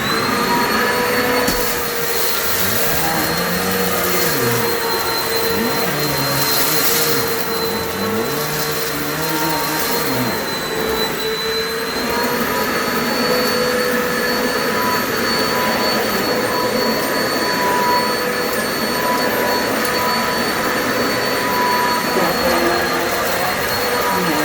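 Kenmore Progressive Pet Friendly upright vacuum running steadily with a high motor whine while it is pushed over a shag rug, its nozzle set to maximum height.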